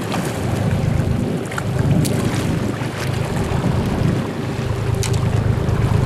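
A boat's engine running steadily at sea, with wind buffeting the microphone and water noise, and a few sharp knocks.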